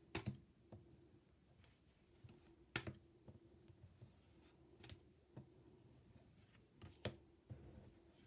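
Near silence with a few faint, sharp clicks about two seconds apart, over a faint steady hum.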